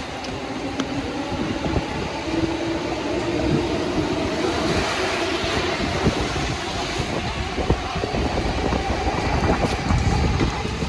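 A train running past on nearby tracks, swelling and easing around the middle, over a steady hiss of rain and wet city noise.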